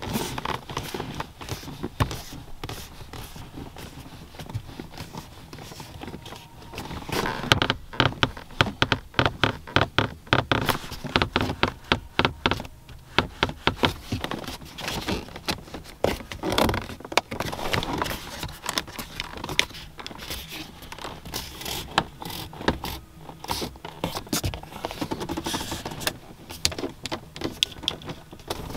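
Hands poking, tapping and knocking on the interior trim of a 2004 Cadillac XLR's cabin to check it for rattles and creaks: quick runs of clicks and knocks, several a second, busiest about a quarter to a third of the way in and again past the middle.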